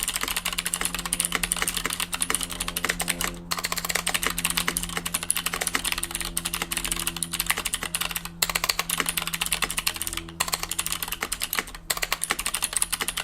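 Fast, steady typing on a KBD75 mechanical keyboard with an aluminium plate: Gatistotle switches on the letter keys and Fosen switches on the modifiers, a dense run of key clicks broken by a few short pauses. A faint steady hum sits underneath.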